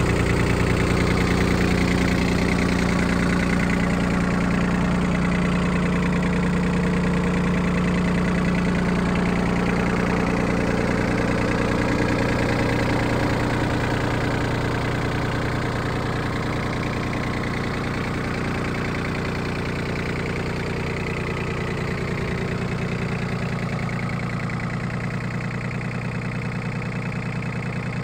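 Yanmar AF17 compact tractor's three-cylinder diesel idling steadily, growing a little quieter through the middle.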